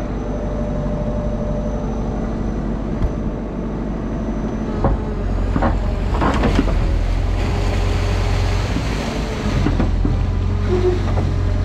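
Mini excavator's diesel engine running steadily, working harder from about halfway through as the hydraulics drive the bucket through the ditch. A few knocks and scrapes of the bucket come around the middle.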